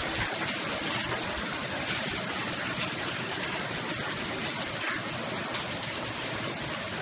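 Pea- to marble-size hail falling steadily, a dense hiss of pellets striking the ground.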